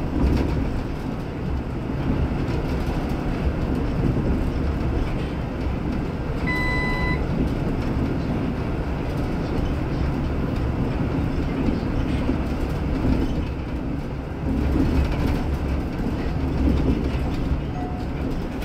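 Inside a Golden Dragon city bus under way: a steady low rumble of drive and road noise. A short electronic beep sounds once, about a third of the way in.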